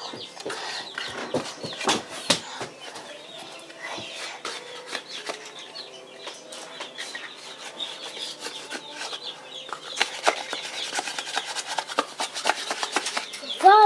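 Young kittens scrambling and wrestling on a blanket in a wooden box bed: rustling fabric, rubbing and quick clicks and scratches of small claws and paws on the cloth and wood, busier in the last few seconds.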